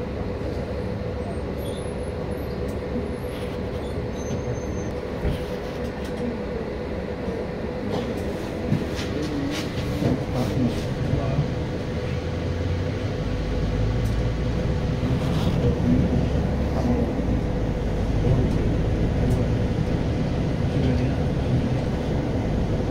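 Steady interior rumble of a city bus on the move, engine and road noise with a constant hum; the deep rumble grows louder about halfway through.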